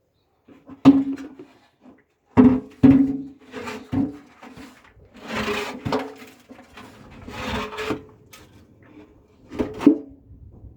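Washing machine drum knocking and scraping with a rasping, grinding rub, a sign of a broken drum spider. Irregular clunks that ring briefly, with two longer scrapes in the middle.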